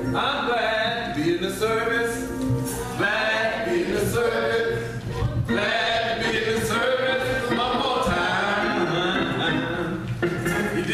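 A gospel hymn sung by a group of voices, with a man's voice leading over a microphone.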